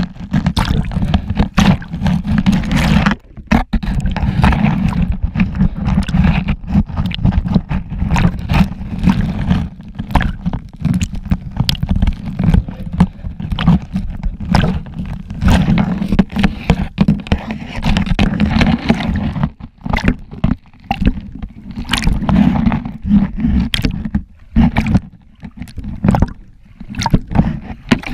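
Small lake waves sloshing and gurgling over and around a half-submerged camera's waterproof housing, heard muffled through the housing as a heavy low rumble with many irregular clicks and knocks.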